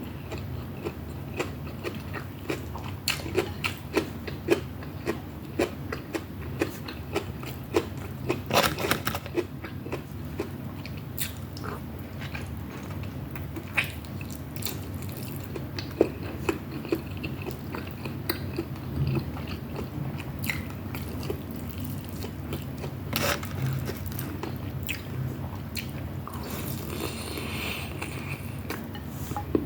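Close-miked eating: a person chewing and crunching food, with many small sharp mouth clicks and smacks at irregular intervals, over a steady low hum.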